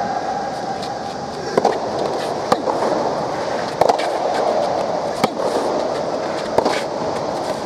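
Soft tennis rally: a rubber soft-tennis ball struck back and forth with rackets, giving about five sharp pocks spaced a second or so apart, over steady background noise.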